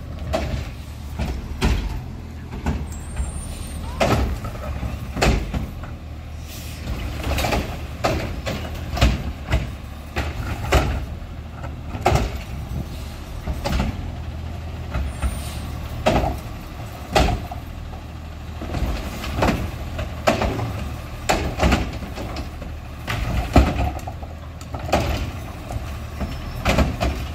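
Recycling truck with a Curotto-Can automated arm, its diesel engine running steadily under a string of sharp bangs and clatters roughly every second as recycling carts are lifted, shaken out and set down.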